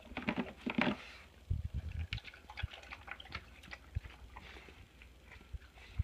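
Dog chewing and licking its mouth after gulping its food down too fast: a quick run of clicking smacks in the first second, a few low thumps, then scattered smacks and a sharp knock at the end.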